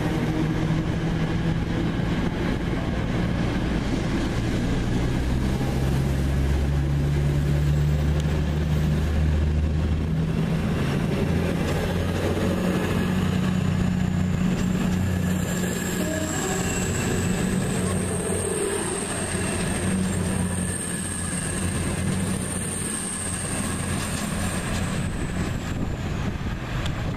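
Class 222 Meridian diesel multiple unit pulling out of the station, its underfloor diesel engines running with a deep drone that steps up in pitch as the train gathers speed. From about halfway through, a long thin high squeal from the wheels rides over it, fading as the train draws away.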